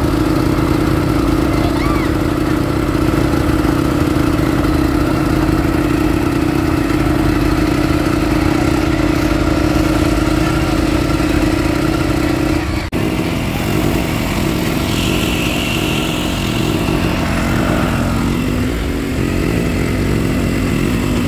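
A motorboat's engine running steadily with a strong, even drone. About two-thirds of the way through the sound changes abruptly, and the rush and splash of water along the hull mixes in.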